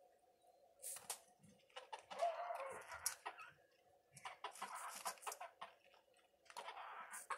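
Domestic hen clucking and squawking in four short bouts while she contends with a dog over its food bowl.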